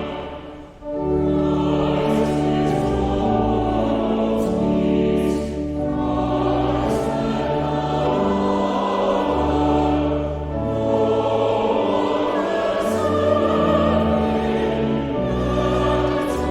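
Choir and congregation singing a hymn over sustained organ accompaniment. The music breaks off briefly just under a second in, as between verses, then resumes.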